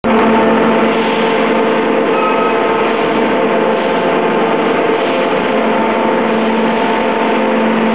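Oil-closure production machinery running steadily: a loud, constant mechanical din with a steady hum and occasional faint clicks.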